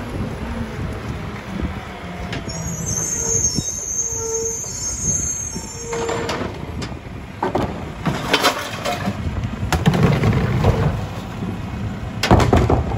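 Split-body rear-loader garbage truck running, its brakes squealing high as it pulls up, then a series of bangs and knocks from about halfway as recycling carts are tipped and knocked against the hopper, the loudest near the end.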